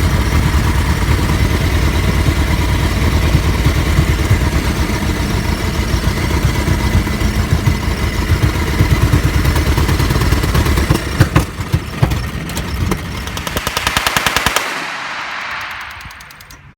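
Non-firing replica Browning machine gun, a noisemaker run by plumbing and electrics, rattling in a rapid steady stream of bangs. About eleven seconds in the stream breaks up into scattered single bangs, then a short fast rattle that fades away.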